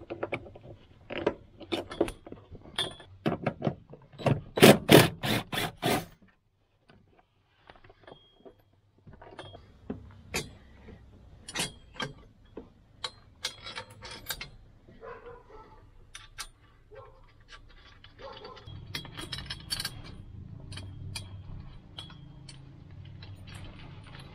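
Hand work on a car's interior: clicks and knocks of the plastic door-sill trim being popped off with a screwdriver, with a quick run of sharp clicks about four seconds in, then scattered taps, scrapes and metallic rattles of bolts and the support bar's bracket being handled.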